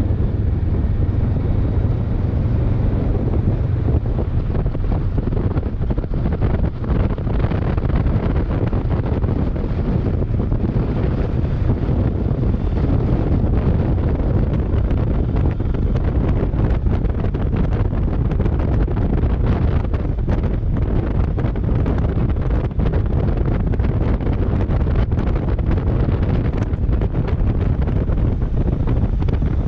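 Steady wind buffeting on the microphone of a moving motorcycle, over the low steady drone of a Kawasaki Versys 650's parallel-twin engine.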